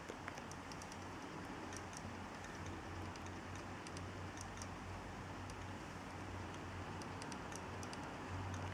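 Hard disk drive running with a steady low hum and many light, irregularly spaced clicks, the clicking noise that marks this drive out as suspect.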